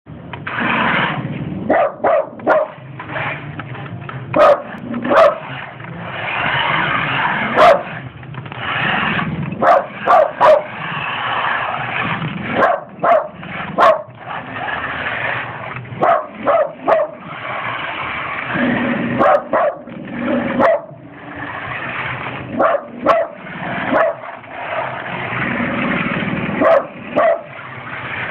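A dog barking over and over, in quick runs of short barks with brief pauses between them, over a steady rushing noise that comes and goes.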